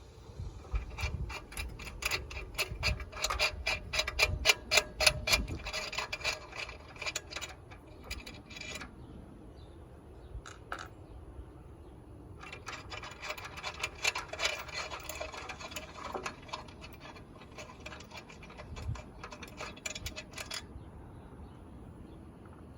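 Fast, even metallic ticking from a hand tool loosening the flat nuts on a railroad crossing light's armature. It comes in two long runs of several seconds each, with a pause between them.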